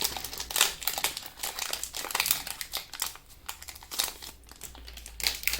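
Pokémon TCG booster pack's foil wrapper crinkling as it is handled, in irregular crackling bursts with a louder one near the end.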